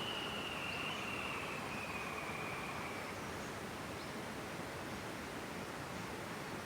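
Steady outdoor ambience, an even hiss, with a faint high whistled note held for the first three seconds, sinking slightly in pitch, and a few faint short chirps.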